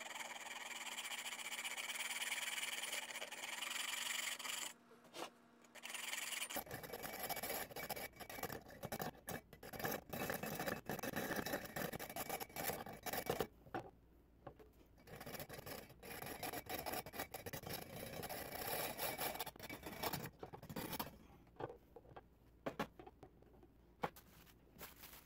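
Hacksaw cutting through a nail held in pliers: rasping back-and-forth strokes with a few short pauses, stopping near the end.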